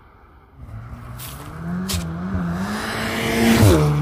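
VW Golf 7 R's turbocharged 2.0-litre four-cylinder under hard acceleration: the engine note comes in, climbs in pitch and loudness, then falls away sharply near the end, with a sharp crack about two seconds in.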